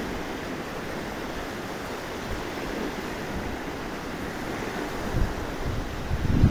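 Sea waves washing onto the shore in strong wind, with wind buffeting the microphone as low rumbling gusts that grow louder near the end.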